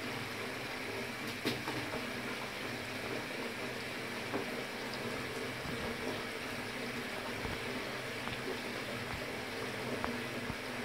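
Water running steadily from a tap, with a couple of faint clicks.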